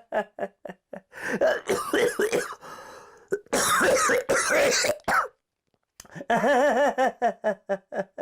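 A person's wordless, exaggerated vocalizing. It starts with quick laugh-like bursts, then a loud, strained, cough-like cry in the middle, a short pause, and more rapid bursts near the end.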